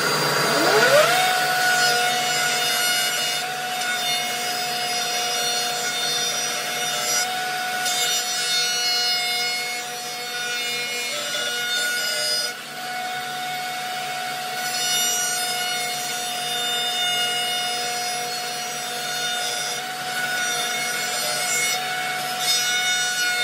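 A Ridgid 2 hp plunge router with a long flush-trim bit spins up with a rising whine in the first second. It then runs steadily while a skateboard deck is fed along the bit and trimmed, with a shop vac drawing chips through the dust hood.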